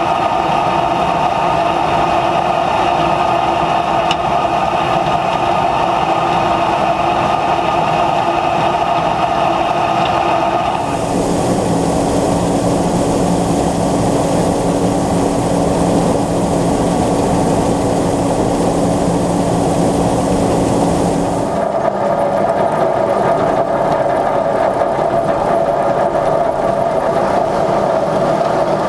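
John Deere 9500 combine running steadily, a constant drone made of several steady tones. About eleven seconds in the pitch and tone change abruptly, and about ten seconds later they change back.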